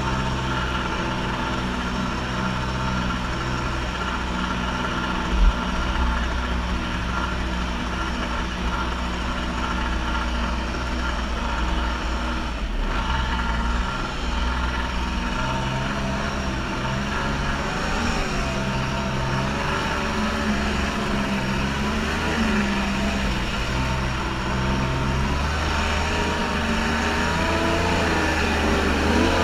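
Kawasaki JS550 stand-up jet ski's two-stroke twin-cylinder engine running under way, with the rush of water from the hull and jet. The engine pitch wavers up and down in the second half as the throttle is worked, and there is one brief knock about five seconds in.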